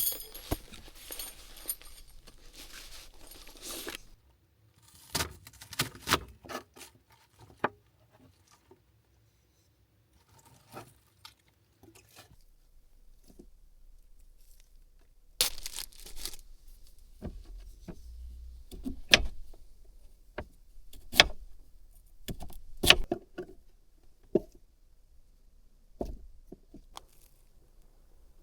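Dinner being prepared by hand in a small space: packaging rustling and being torn, with scattered sharp clicks and knocks of kitchen utensils and containers, the loudest three coming a couple of seconds apart in the second half.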